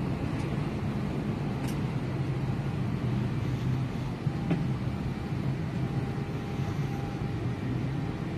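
Steady low hum of an Airbus A321 cabin's air-conditioning running in the empty airliner, with a couple of faint clicks.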